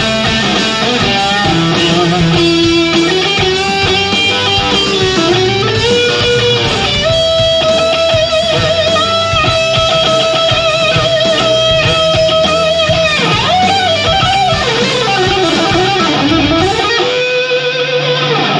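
Live rock band with a heavily distorted electric guitar playing lead. The guitar holds one long note with vibrato through the middle, then bends the pitch up and down. The bass and drums drop out about a second before the end, leaving the guitar ringing.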